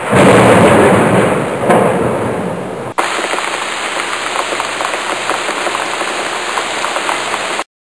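Audience laughing and applauding loudly, fading over about three seconds. Then an abrupt cut to a steady, even patter full of small ticks, which stops suddenly shortly before the end.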